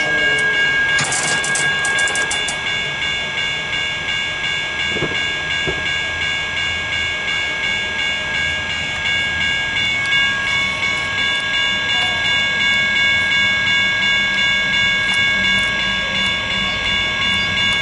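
Railway level crossing warning bells ringing steadily, a bright ringing tone that pulses in loudness. A train's low rumble grows under the ringing near the end.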